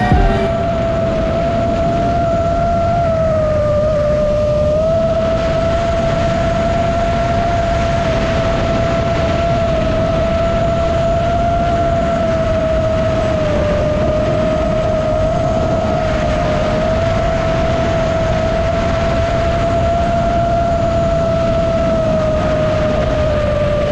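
5-inch FPV racing quadcopter's brushless motors and props (2207 motors, 2650 kV) heard from the onboard camera in flight: a steady high whine that sags slightly in pitch now and then, over a continuous rush of air noise.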